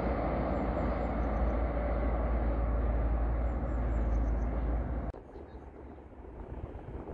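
Metro train running away along an open-air track section, a steady rumble mixed with wind on the microphone, which cuts off suddenly about five seconds in, leaving quieter outdoor background noise.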